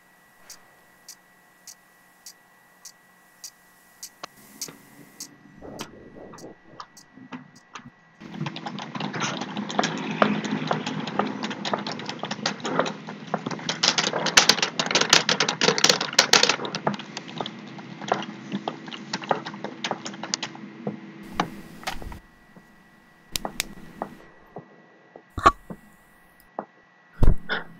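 Wristwatch ticking, even sharp ticks about twice a second. Then, from about eight seconds in, fast typing on a Lenovo computer keyboard, a dense run of key clicks lasting some thirteen seconds, followed by a few scattered taps and two louder thumps near the end.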